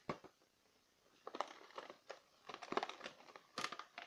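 Clear plastic blister pack of a boxed toy figure crinkling and crackling in the hand as it is turned over: one crackle at the start, a quiet moment, then irregular crinkling from about a second in.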